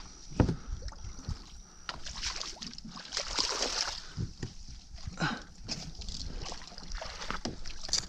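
Water splashing and sloshing beside a kayak as a hooked alligator gar thrashes at the surface, with a sharp thump about half a second in and the heaviest splashing a couple of seconds later.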